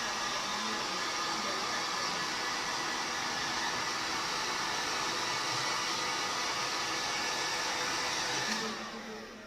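Handheld hot-air blower running steadily, as used to soften vinyl wrap so it stretches over a panel. It switches off near the end.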